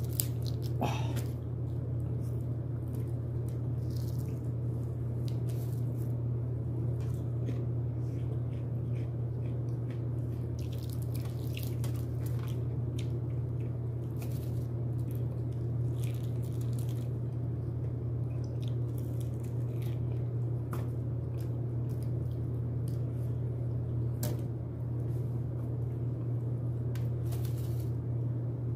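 Close-up eating of broasted fried chicken: irregular bites and wet chewing sounds, over a steady low hum.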